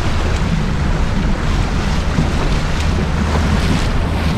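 Bass boat running under outboard power: a steady engine drone under loud rushing wind and water noise, with wind buffeting the microphone.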